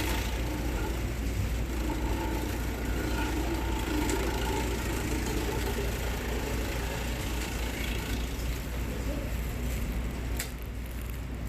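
Electric green-onion slicing machine running steadily with a constant motor hum. A sharp click comes near the end, after which the sound is a little quieter.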